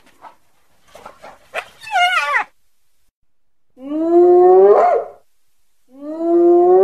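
Two long whooping calls of a wild carnivore, each about a second and rising in pitch to a quick upturn at the end. Before them, about two seconds in, comes a short falling run of squeaky stepped notes.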